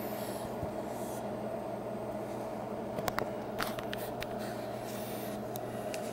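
Steady low electrical hum from the powered bench test equipment, with a few light clicks and rustles of handling around the middle.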